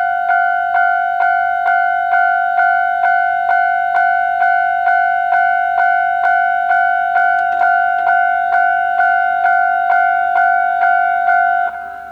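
Japanese level-crossing electronic warning bell ringing its repeated clang, a little over two strikes a second at one steady pitch, warning that a train is approaching. It drops in loudness just before the end.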